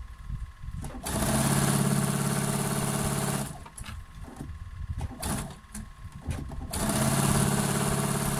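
Electric sewing machine stitching a seam along a folded fabric strip, in two steady runs: one starting about a second in and stopping after about two and a half seconds, the other starting near the end. Between them, quieter fabric handling and a few small clicks.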